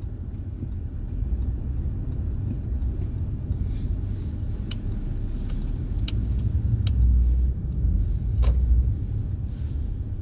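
Car driving along city streets: a steady low road rumble, with light ticks about three a second early on and a few sharper clicks later.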